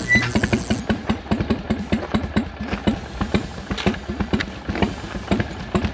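1988 Harley-Davidson Softail's 1340 cc Evolution V-twin idling, a steady pulsing beat of several firing pulses a second.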